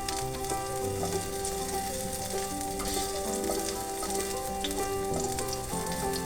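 Food frying and sizzling in a pan, with a steady crackling hiss, over background music.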